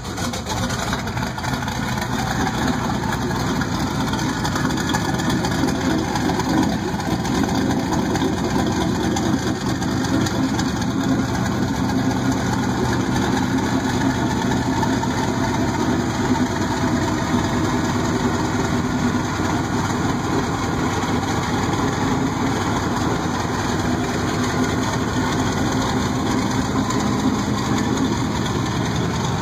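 Twin-turbocharged engine with two four-barrel carburetors running steadily at idle.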